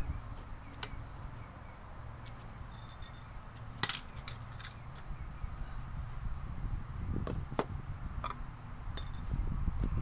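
Scattered light metallic clinks and knocks of hand tools and metal parts being handled on a wooden workbench, two of them with a brief high ring, over a steady low rumble.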